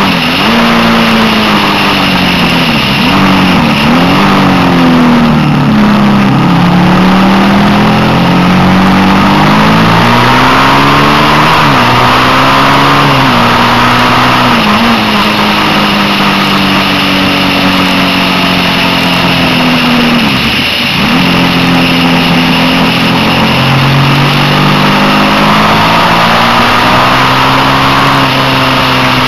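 Suzuki SV650's V-twin engine at speed, its pitch climbing as it accelerates and dropping sharply several times on gear changes and throttle lifts, the deepest dip about two-thirds of the way through. A steady wind rush runs under it.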